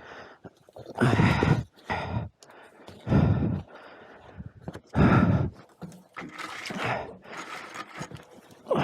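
A man grunting and breathing hard with strain in repeated bursts, every second or two, as he heaves a crashed motorcycle.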